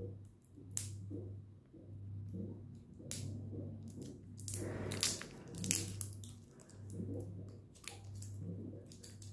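Small cardboard mascara box being pried and worked open by hand, with scattered clicks and crinkles and a longer scraping rustle about halfway through; the badly die-cut flaps won't come apart. A low hum swells and fades about once a second underneath.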